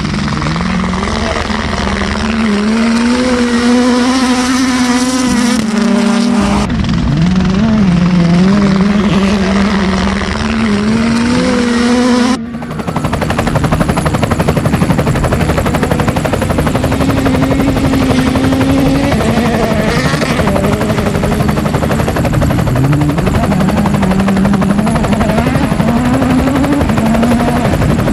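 Helicopter turbine and rotor running, with a whine that wavers in pitch. About twelve seconds in, the sound cuts to a rapid, even rotor beat.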